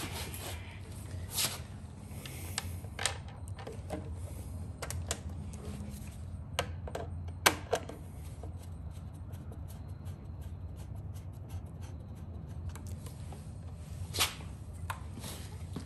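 Scattered clicks and knocks of small plastic and metal parts and hand tools being handled while a motorcycle light unit is mounted, over a steady low hum. The sharpest knock comes about halfway through.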